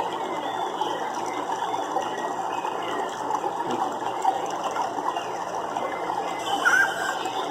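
Nature ambience: a steady, dense chorus of rapid clicking, with a few faint short chirps and a brief chirp near the end.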